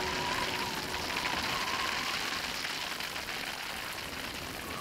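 Hailstones falling steadily on grassland, a dense hiss of many small impacts, with a thin, slightly wavering tone underneath.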